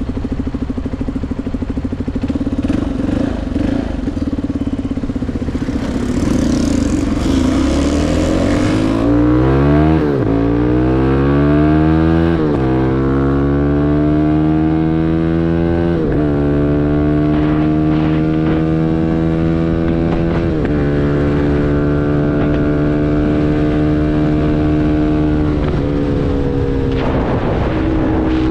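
CFMoto 250NK's single-cylinder engine breathing through a full Akrapovič exhaust, running steadily, then pulling up through the gears in several rising sweeps, each cut by a gear change, before settling into a steady cruise. The engine note dips near the end.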